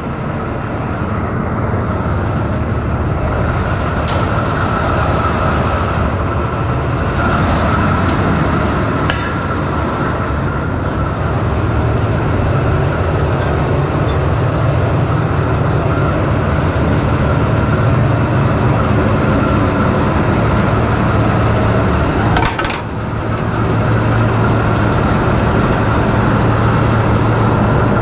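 Crawler pile-driving rig's engine running steadily at close range, a continuous low mechanical drone, with a brief dip in level about 22 seconds in.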